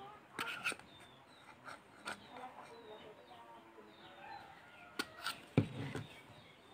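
A steel spoon clinks and taps against the bowl a few times while baking powder is spooned onto flour and cocoa powder: a pair of clicks about half a second in, one near two seconds, and a cluster around five seconds. Faint bird chirps sound in the background.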